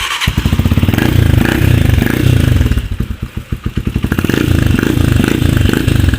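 Motorcycle engine starting up suddenly and running through an aftermarket chicken pipe exhaust with no steel wool packed inside, the throttle opened twice so the exhaust note swells, eases off and swells again.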